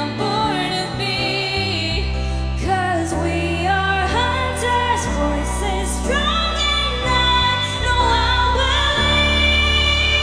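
Pop music with a woman singing long, wavering held notes without clear words, over a heavy, steady bass.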